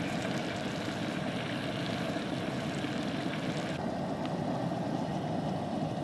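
Bacon and a burger frying in a pan on a two-burner Coleman propane camp stove: a steady sizzle of hot fat over the burner flame. The higher hiss drops away about four seconds in.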